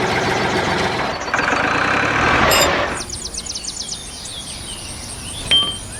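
A motor-like running noise, steady and dense, that stops abruptly about three seconds in. After that come quieter sounds with short high chirps and a brief sharp sound near the end.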